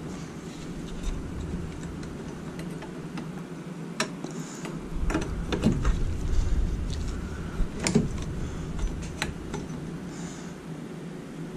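Scattered light clicks and taps of a throttle linkage and cable being handled and fitted by hand, with a few sharper clicks in the second half.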